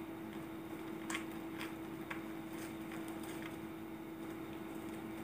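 Faint crinkling and ticking of plastic wrapping and tape being picked at and peeled off a long fishing-rod parcel, a few small sounds about half a second apart, over a steady hum.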